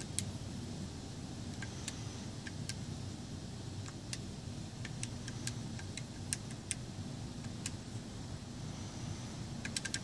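Buttons of a 12-key plastic matrix keypad clicking as a finger enters a code, with irregular single presses and quick runs of presses. A steady low hum runs underneath.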